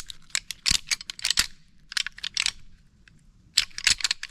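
Deer rattling: hard clicks and clacks in quick, irregular clusters with short pauses between them, imitating two bucks sparring to draw a buck in.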